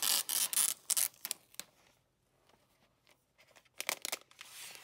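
Protective wrap sheet being peeled and pulled off a new MacBook Pro: loud crinkling, tearing rustles for the first second and a half, then a pause and a few more rustles near the end.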